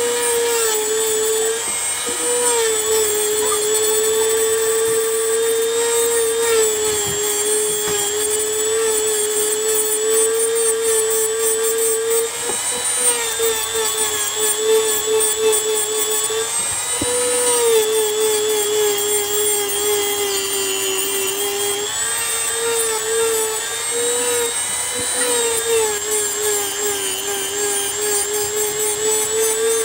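Handheld electric mini grinder (rotary tool) running at high speed with a steady whine, grinding down the depth gauges (rakers) of a worn chainsaw chain. Its pitch sags a little several times as the small bit bears on the steel, then picks up again.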